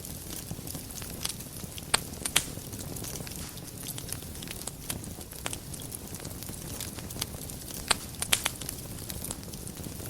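Wood fire burning in a fireplace: a steady low rush of flame with scattered crackles and sharp pops. The loudest pops come as a pair about two seconds in and as a cluster near the end.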